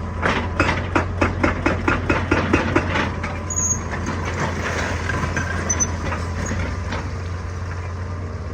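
Excavator diesel engine running steadily. Over the first three seconds there is a rapid, even run of sharp impacts on rock, about four or five a second, then only the engine remains.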